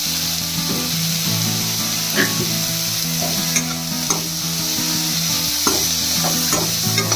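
Chopped onion, capsicum and green chilli sizzling in hot mustard oil in a kadhai as a spatula stir-fries them, with scattered taps and scrapes of the spatula on the pan.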